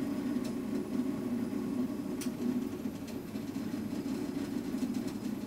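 RepRap 3D printer's stepper motors running as the print head follows the hand-tracked path and extrudes plastic, a steady mechanical drone with a faint click about two seconds in.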